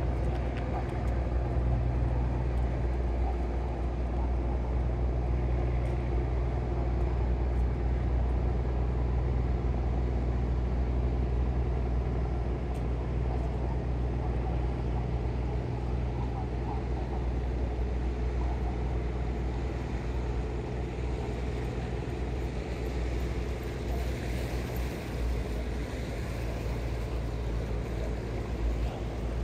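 Steady low engine hum with an even wash of outdoor background noise.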